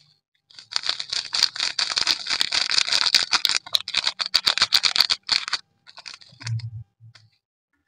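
Clear slime being squished and worked by hand, a dense run of rapid wet crackling and popping that stops about five and a half seconds in, followed by a soft low thump.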